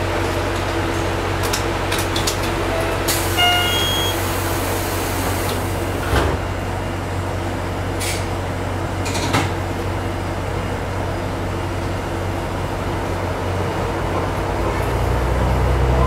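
Diesel engine of a KiHa 220 series railcar idling at a station stop, heard from the driver's cab. About three seconds in there is a short beep and a hiss of air, followed by a few knocks around six and nine seconds, and near the end the engine note rises as the railcar starts to pull away.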